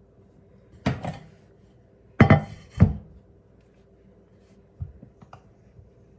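Kitchen utensils knocking against a counter and dish while pie dough is handled: three sharp knocks, about a second in and twice more around two to three seconds in, then a couple of faint taps.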